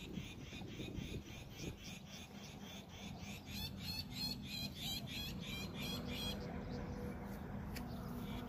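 A rapid, rhythmic high chirping call from an unseen small animal, about four pulses a second, growing louder and then stopping about six seconds in, over low wind rumble on the microphone.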